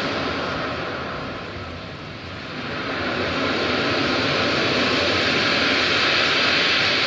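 A steady, broad rushing noise from a recorded soundscape played as accompaniment to a dance, fading about two seconds in and then swelling back.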